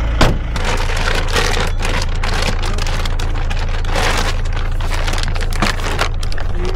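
Rustling and crinkling of plastic bags and camping gear being packed, in irregular bursts over a steady low hum. There is a sharp knock about a quarter of a second in.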